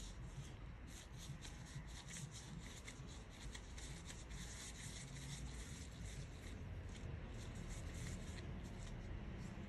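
Disposable plastic gloves rustling and crinkling as hands rub and roll a ball of chickpea mooncake filling, a quick run of small crackles.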